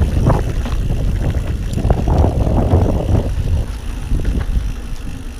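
A Ghost Riot mountain bike rattles and rumbles over a dirt trail, with wind buffeting the microphone. The noise dies down in the last couple of seconds as the bike rolls onto smooth pavement and slows.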